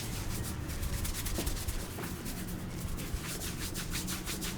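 Hands rubbing briskly through hair and over the scalp in a head massage, a quick run of rasping strokes over a steady low hum.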